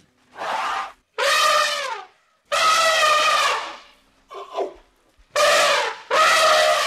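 Asian elephants trumpeting, six brassy calls in a row, each lasting about half a second to a second and dropping slightly in pitch as it ends; the fourth is shorter and fainter.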